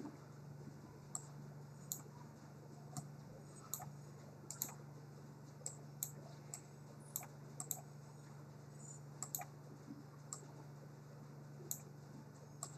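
Faint, irregular clicking from working a computer's mouse and keys, about twenty separate clicks, over a low steady hum.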